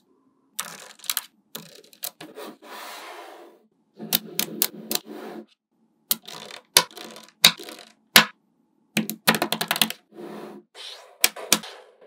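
Small magnetic balls clicking and snapping together as strips and columns of them are laid onto a slab. The sharp clicks come in quick clusters with brief silences between, and one single click a little past the middle is the loudest.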